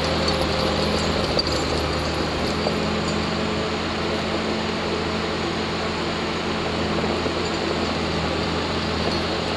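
Diesel engine of heavy logging equipment running steadily at a constant pitch, with a low even hum.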